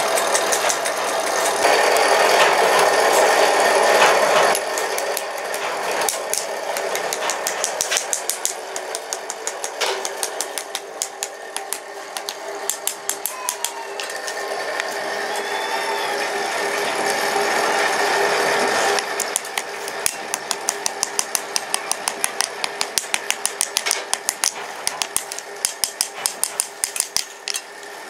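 A bench drill press running as it bores into a wooden spatula handle for about the first four seconds. Then a hammer taps on metal in quick, regular strokes, about three a second by the end, riveting wooden handles on a steel block, over a steady machine hum.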